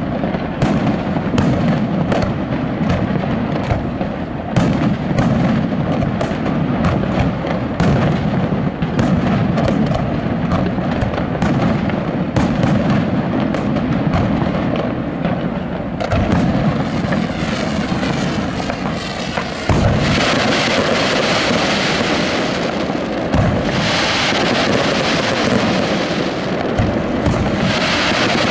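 Aerial fireworks display: a rapid, continuous barrage of shell bursts and reports. From about two-thirds of the way through, a loud steady hiss of crackling stars rises over the bangs, broken by a few heavier booms.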